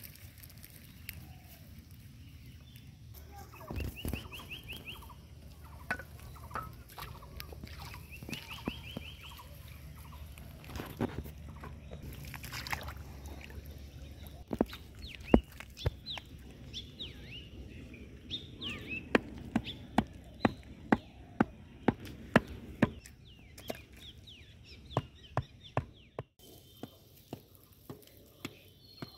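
Sharp knocks, about two a second through the second half, as the wooden stakes of a homemade fishing-line reel rig are driven into riverbank mud. Short bird calls sound earlier.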